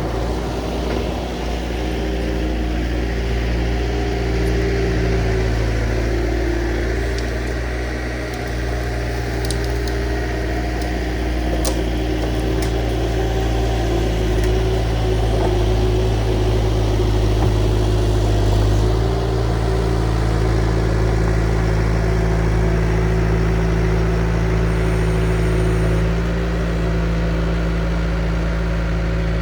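Diesel engine of a compact earthmoving machine running steadily while working, its engine speed shifting a few times.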